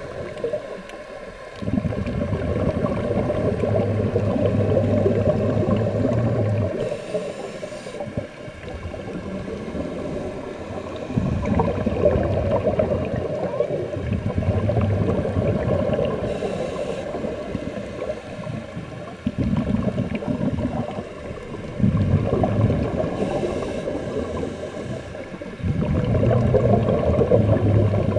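Scuba diver breathing through a regulator, heard underwater: long rumbling spells of exhaled bubbles, broken three times by a short hiss of inhalation.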